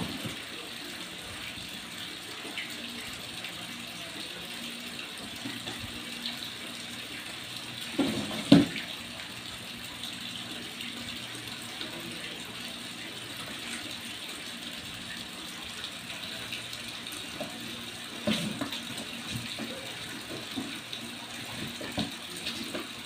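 A cardboard box knocked about and shoved across a tiled floor by playing kittens: a few dull thumps and scuffs, the loudest about eight seconds in, over a steady background hiss.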